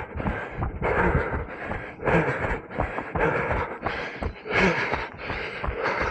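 A runner breathing hard in a steady rhythm of rasping breaths, about three every two seconds, with footfalls thudding underneath.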